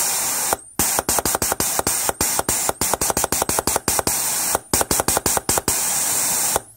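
A 4L60E torque converter clutch PWM solenoid on a compressed-air bench test, switched on and off rapidly. It clicks sharply several times a second while air hisses out through it. The solenoid is sealing properly and not leaking.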